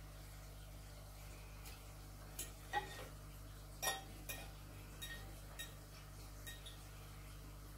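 A metal fork clinking and scraping against a ceramic plate while picking up spaghetti: about seven light clinks over a few seconds, the loudest near three and four seconds in.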